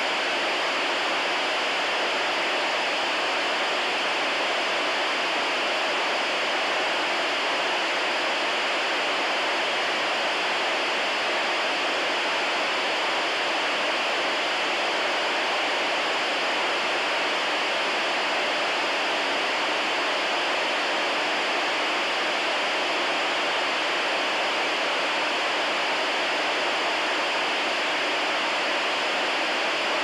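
Walkie-talkie radio static: a steady, unbroken hiss, strongest in the middle and upper range, with no crackles or voices.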